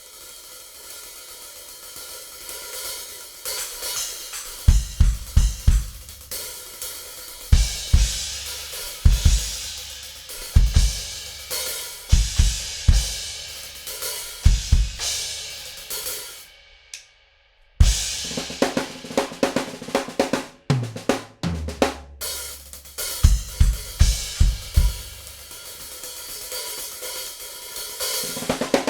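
Tama Rockstar acoustic drum kit with mahogany/basswood shells played in a sound check. It opens with a few seconds of cymbals and hi-hat, then goes into a beat with bass drum and snare. About two-thirds of the way in the playing stops for a second, then restarts with a run of drum hits stepping down in pitch before the beat picks up again.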